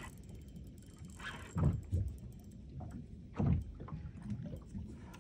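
Water sloshing against a small fibreglass boat's hull over a steady low rumble, with two louder slaps about a second and a half in and again about three and a half seconds in.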